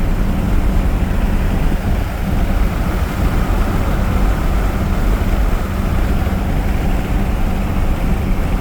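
Loud, steady low rumble with a rushing noise above it, unbroken and without a clear pitch.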